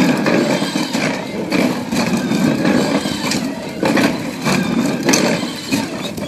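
Bulldozer's diesel engine running, with repeated clanks and knocks.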